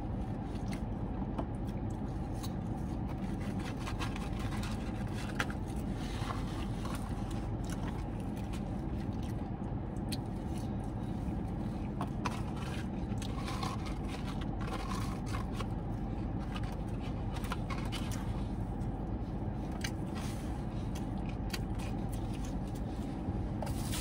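Steady low hum of a parked car running, heard from inside the cabin, with faint scattered clicks and rustles of a paper food box being handled while eating.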